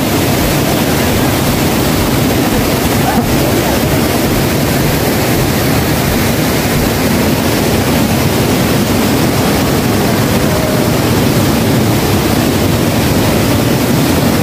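Mountain river pouring over rock ledges in a small waterfall: a loud, steady rush of white water.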